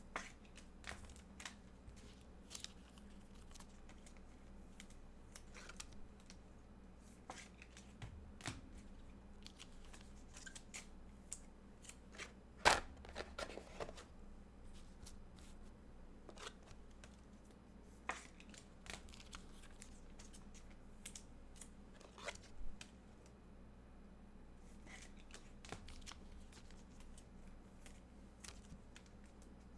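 Trading cards and their packaging being handled: scattered small clicks, taps and rustles, with one sharper snap about halfway through.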